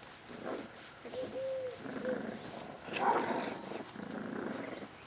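38-day-old Staffordshire Bull Terrier puppies growling in short rough bursts, with a few brief high whines between them; the loudest growl comes about three seconds in.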